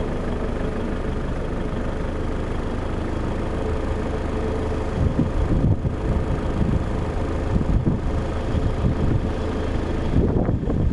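Jet engines of a Boeing 767-300 freighter at takeoff power during its takeoff roll: a steady distant rumble with a faint whine. From about five seconds in, low gusts of wind buffet the microphone.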